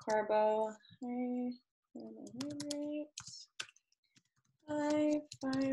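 Light keystroke clicks on a computer keyboard as words are typed, under a woman's voice slowly drawing out the syllables of "high-carbohydrate" as she types it.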